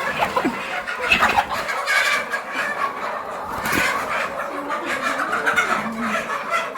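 A flock of 16-week-old pullets clucking, many birds calling over one another.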